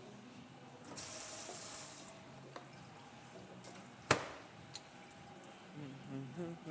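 Tap water running for about a second, then a single sharp knock.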